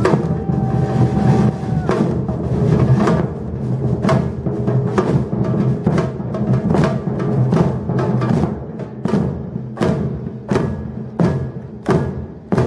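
Batucada drum ensemble playing, heavy on deep bass drums with sharper drum strikes on top. Toward the end the playing opens out into distinct accented hits, about one every 0.7 s.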